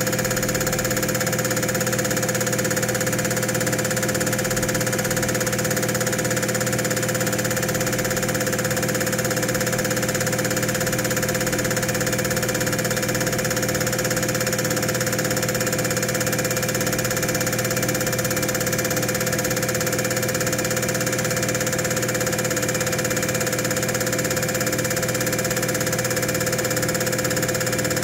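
Diesel injector test bench running steadily, its drive motor and high-pressure pump giving a constant hum with a steady whine, while two Bosch piezo injectors spray into the collectors. A light, regular pulse runs under the hum.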